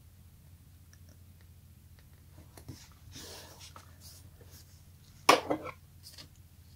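Washi tape being handled on paper: soft, faint rubbing as fingertips press a strip down, then about five seconds in a short, loud crackling rip as a fresh length is pulled off the roll, with a smaller one just after.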